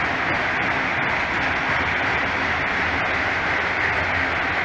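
Freight train's autorack cars rolling slowly past: a steady rumble and rush of steel wheels on the rails.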